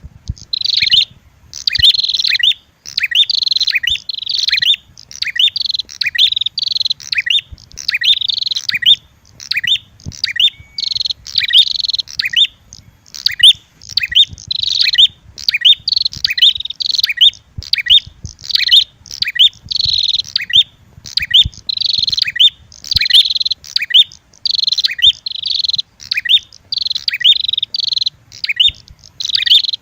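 Looped bird-lure recording of red-headed prenjak calls mixed with female prenjak fight calls: loud, rapid high chattering chirps in short bursts, one after another with brief gaps.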